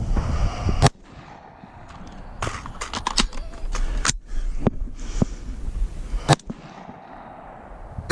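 Gunshots at a 3-Gun match: about eight sharp reports at uneven intervals, some loud and close, others fainter. A loud rush of noise on the microphone cuts off about a second in.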